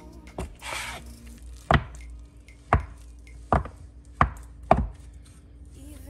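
About six sharp knocks on a hard kitchen work surface, irregularly spaced, with a brief brushing sound under a second in, typical of food being cut or handled on a board.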